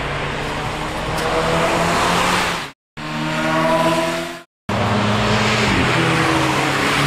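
Three short takes of cars being driven hard on a wet track, split by two brief silent cuts: in each the engine note climbs slowly in pitch under acceleration over the hiss of tyres on wet tarmac. One take is of a BMW E30 3 Series. In the last take the engine note drops sharply once, about six seconds in.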